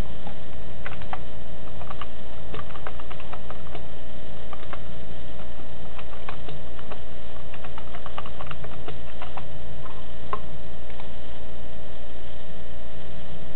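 Typing on a computer keyboard: irregular key clicks, in short runs, over a steady low hum.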